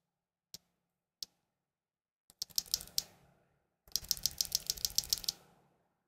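A loose mechanical keyboard switch with a yellow stem pressed and released between the fingers: two single clicks, then two runs of rapid clicks, about nine a second, the second run longer.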